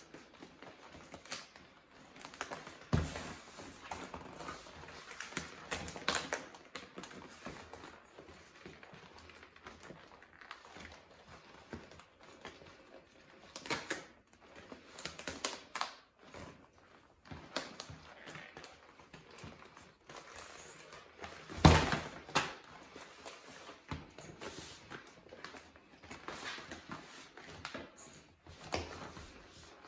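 Deflated G&G Balto vinyl inflatable toy being unfolded and handled, its plastic sheeting crinkling and rustling in irregular bursts with clicks. A few dull thumps, the loudest about two-thirds of the way through.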